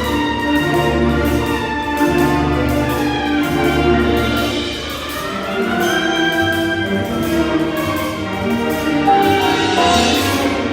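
High school marching band playing its show music: sustained brass and woodwind chords over low percussion, with a rising line in the middle.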